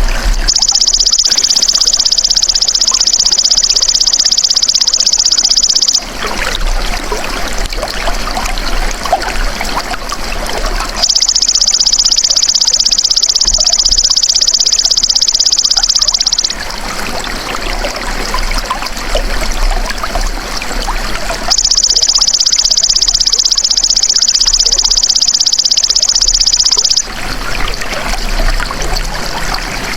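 Belalang emas (golden grasshopper) singing: three high-pitched, fast, even buzzing trills of about five seconds each, with pauses between. Running water trickles steadily throughout.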